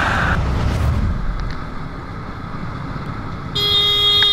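Road and engine rumble from a moving vehicle, then about three and a half seconds in a vehicle horn sounds one long steady honk as a car cuts across the lane.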